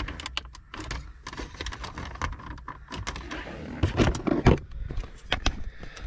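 Plastic center dash bezel of a Jeep Wrangler JK being pulled and worked loose by hand, its plastic and retaining clips giving a string of clicks and rattles, with two sharper knocks about four seconds in. The clips are holding against the pull.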